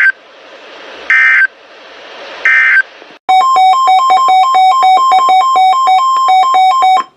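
NOAA Weather Radio EAS end-of-message data bursts: short screeching digital bursts about a second apart over radio static, closing the tornado warning. They are followed by about four seconds of rapid electronic beeps that alternate between two pitches, like a ringtone.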